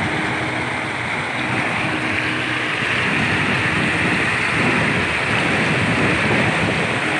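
Floodwater pouring over a concrete weir crest and rushing down the spillway as white water: a loud, steady rush that grows a little louder after about two seconds.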